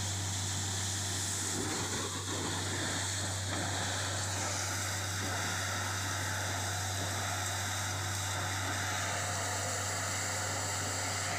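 A machine running steadily: a constant low engine hum with a rushing noise over it.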